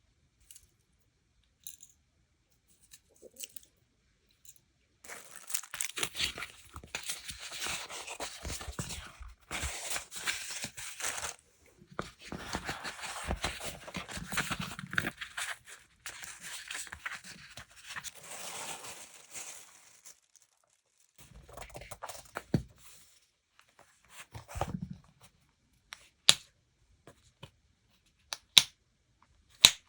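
Paper or plastic packaging being torn and crinkled close to the microphone, about fifteen seconds of continuous tearing and rustling with short pauses. Before it come a few faint taps, and after it scattered rustles and a few sharp clicks near the end.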